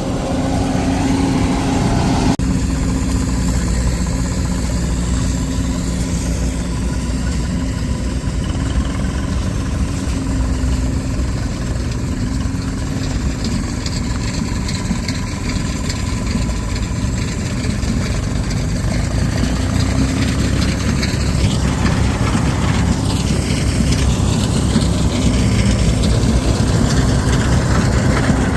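Large diesel farm engine running steadily at an even speed.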